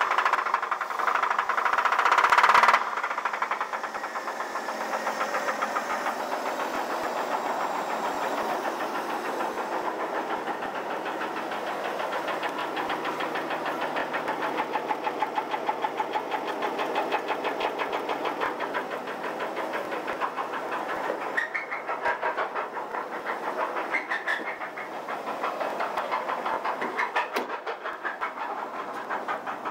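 1983 Chevrolet S10's 2.8 V6 running with a steady, rhythmic rod knock, which the owner places on the number one cylinder. It is louder for about the first three seconds, then drops to a steady knocking run.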